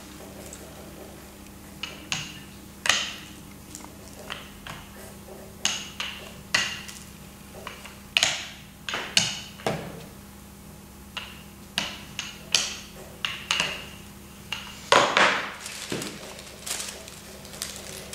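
Rubber hand roller (brayer) worked over a paper print laid on a soft clay slab: irregular crackles of paper and knocks of the roller, spaced unevenly, with a louder cluster late on. A faint steady hum lies underneath.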